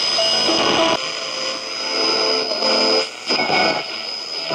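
Portable shortwave radio being tuned by hand, heard through its loudspeaker: snatches of broadcast music and voices come and go over static hiss, with a steady high whistle. The sound drops out briefly about three seconds in.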